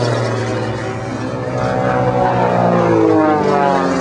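Propeller airplane engine running overhead, its pitch rising about halfway through and falling again near the end as the plane passes.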